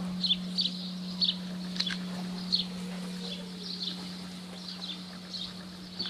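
Small birds chirping in short, quick, falling calls, most often in the first few seconds, over the steady low hum of a large monastery bell that is still ringing out after being struck and slowly fading.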